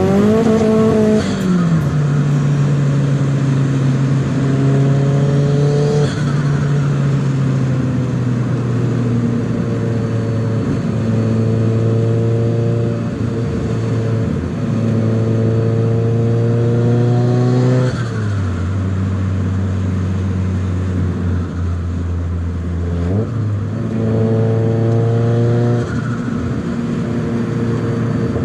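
Nissan 200SX S14a's turbocharged SR20DET four-cylinder engine pulling through the gears, its pitch climbing and then dropping at each gear change, several times over.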